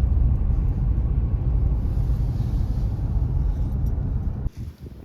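A loud, steady low rumble that cuts off suddenly about four and a half seconds in.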